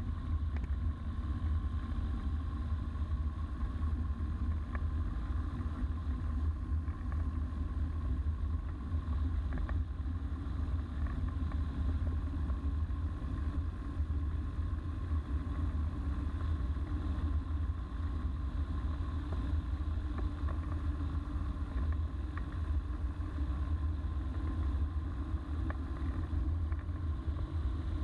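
Microlight trike's engine and pusher propeller running steadily as the aircraft rolls along the runway: a constant deep drone with a thin, steady higher whine and no change in speed.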